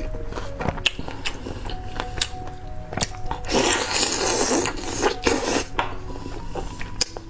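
Background music over close-miked eating sounds: chewing and short sharp biting clicks. A louder, noisy mouth sound comes about three and a half seconds in and again around five seconds.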